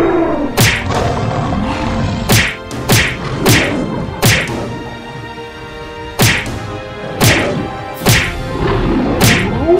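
Cartoon fight sound effects: a series of sharp whacks and thuds, about nine hits at uneven intervals, over background music.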